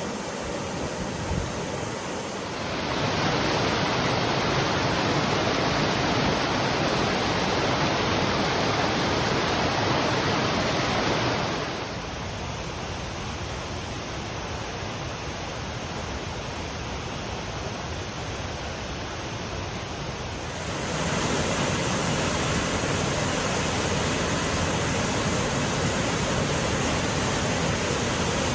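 Waterfall roaring: a steady, dense rush of falling water. It gets louder about three seconds in, drops back near the middle, and rises again about two-thirds of the way through.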